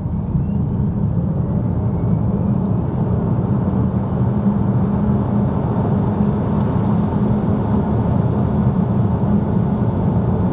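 Cabin noise of a Cupra Born electric car accelerating hard from a standstill. Road and tyre noise swells over the first couple of seconds and then holds steady, with a faint motor whine rising in pitch over the first few seconds.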